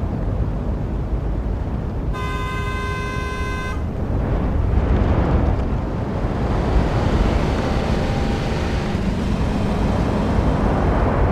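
Road traffic: continuous rumble of passing vehicles, with a vehicle horn sounding once, steadily for under two seconds, about two seconds in.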